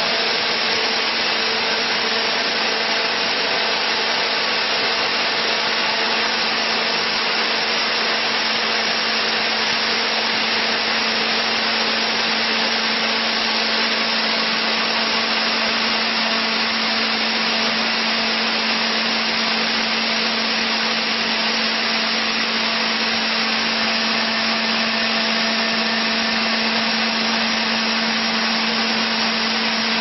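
Large electric chain sawmill ripping a log lengthwise: the saw chain cuts through the wood with a steady, even rushing sound, over a steady low hum.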